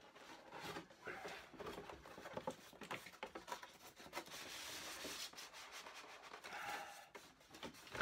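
Cardboard packaging rubbing and scraping as an inner box is slid out of its outer box, with many small knocks and rustles.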